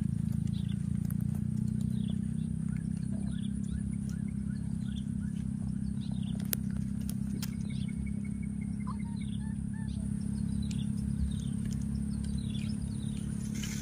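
Small birds chirping, with short high falling notes about once a second, over a steady low hum.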